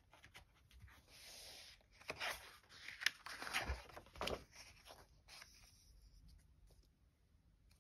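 Pages of a large softcover picture book being turned by hand: paper sliding and rustling, with a few short sharp flaps and taps in the middle as the cover and title page are turned over.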